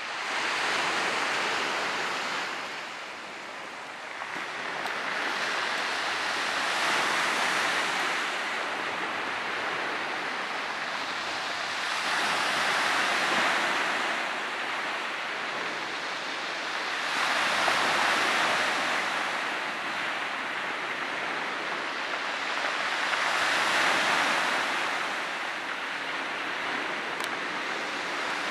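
Sea surf breaking on a stony shore: a rush of noise that swells and falls back about every five to six seconds.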